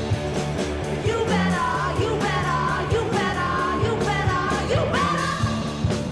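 Rock song: a sung vocal line over electric guitar and a steady drum beat.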